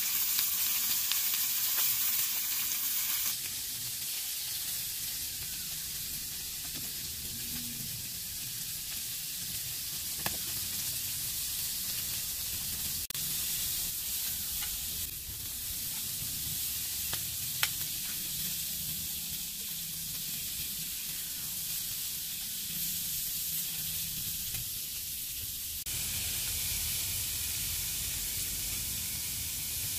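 Chicken pieces sizzling in a frying pan over a wood fire: a steady frying hiss, with a few sharp clicks along the way.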